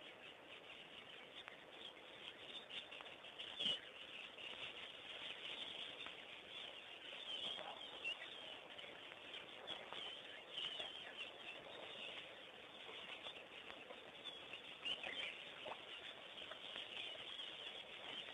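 Faint chirping of small birds, many short calls overlapping throughout, with one sharp knock a little under four seconds in.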